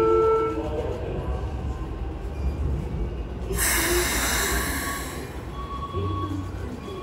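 Split-flap train departure indicator flipping, its flaps clattering as the destination and train-type rows change over, amid train noise on the platform. A steady tone cuts off just after the start, and a loud hiss rises about three and a half seconds in and lasts over a second.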